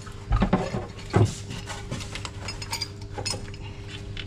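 Steel mounting plate and washer clinking and scraping against the chassis as they are fed up and through by hand, with a few sharp metallic clinks over a steady low hum.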